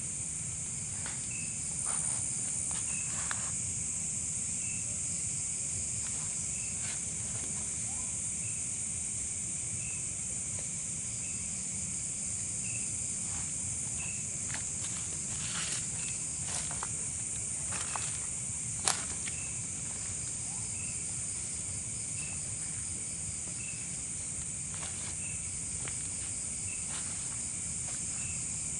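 Night insect chorus: a steady high shrill trill, with a short chirp repeating about every one and a half seconds. Scattered light crackles and steps through it, one sharper crack about two-thirds of the way through.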